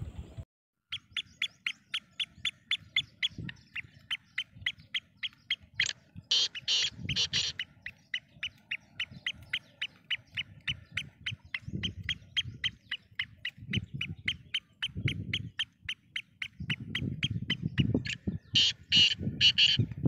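Caged black francolin calling: a quick run of short, high clicking notes, about four a second. It is broken twice by a louder burst of three or four harsh notes, once about six seconds in and again near the end.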